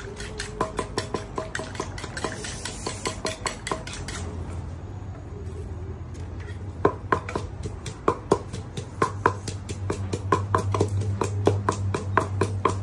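Wooden pestle pounding papaya salad in a mortar, with a spoon clinking against the mortar. A quick run of knocks, a lull of about two seconds, then irregular knocks again, some of them louder.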